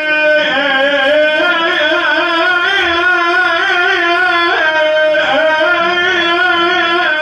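Male voice chanting an Iraqi Shia nai (mourning lament), holding long melismatic notes with a wavering pitch and no clear words.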